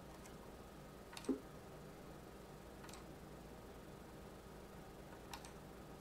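A few faint, sharp clicks of a computer mouse as the receiver is retuned, the loudest about a second in, over a faint steady room hum.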